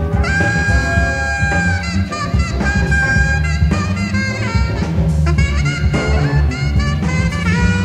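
Live jazz-fusion band playing. Saxophone and trumpet hold long notes and play phrases over electric bass and drums, with the bass heavy in the low end.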